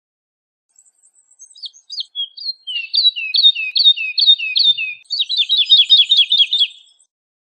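Woodlark singing one song phrase of repeated liquid, falling whistled notes. It starts faint and builds in loudness, then breaks into a faster run of the same notes before stopping.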